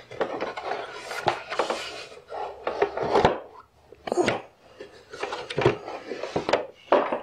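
Handling noise from a push mower's front wheel and axle being worked by hand: an irregular run of knocks, clatter and scraping, with a few sharper knocks.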